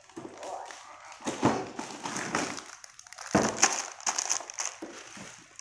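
Cardboard toy box being handled and a plastic-wrapped pack of small tubs pulled out of it: irregular rustling and crinkling of plastic and cardboard, with two louder knocks about a second and a half in and past three seconds in.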